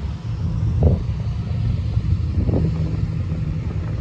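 An engine running steadily with a low, even rumble, with two brief faint sounds, about a second in and about two and a half seconds in.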